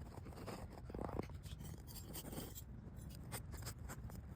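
Hand tool scratching and scraping as it pokes a hole into a hollow, raised spot in a tennis court surface, in short irregular strokes with louder scrapes about a second in and again around two seconds in.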